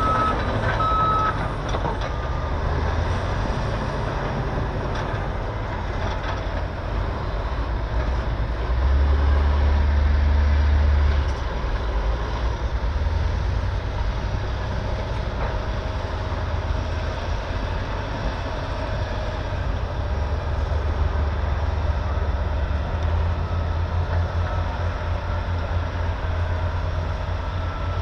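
Heavy diesel engines of an earthmoving scraper and bulldozer working in push-pull, a steady low rumble that swells loudest for about two seconds around nine seconds in. A backup alarm beeps a few times at the start.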